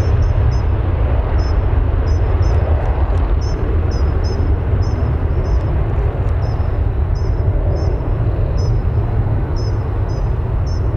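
Ryanair Boeing 737 jet engines at takeoff thrust during the takeoff roll: a steady, heavy low rumble. A bird chirps repeatedly over it.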